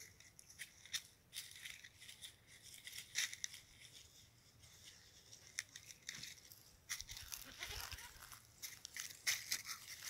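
Goats grazing, tearing and chewing dry grass among dry leaves: many short rustles and crunches, thickest in the last few seconds.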